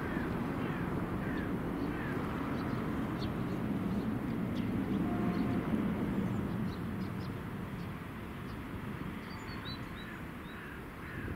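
Distant low rumble of a 2TE25KM twin-section diesel freight locomotive working its train. The rumble swells to its loudest about halfway through, then eases off, with birds chirping over it.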